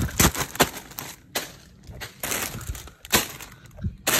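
Packaged cheese grabbed off a store shelf and dropped into a plastic shopping cart: an irregular run of plastic crinkles, knocks and clatters, densest in the first second.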